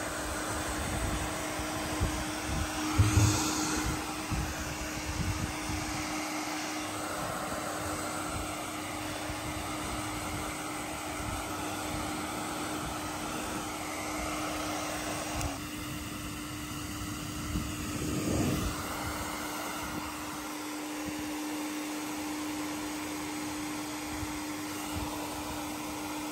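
Steady whir of an electric motor with a constant low hum, typical of a fan or blow dryer. There are brief louder bumps about three seconds in and again a little past the middle.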